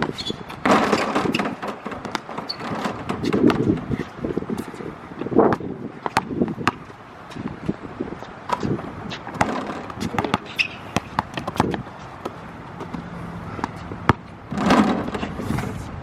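A basketball bouncing on an outdoor court, sharp irregular knocks, over wind noise on the microphone.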